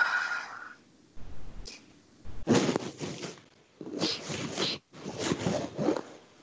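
A woman crying as she comes out of hypnosis: a brief high whimper, then three shaky, sobbing breaths.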